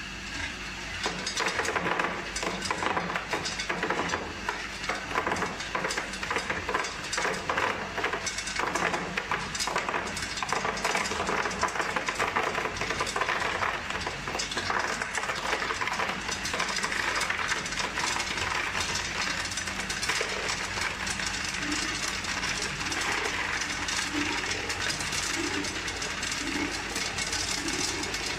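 Tube ice from a 5-ton-per-day tube ice machine clattering out of its stainless steel chute into a plastic tub during harvest: a dense stream of clinking that starts about a second in and keeps up, over the machine's steady hum.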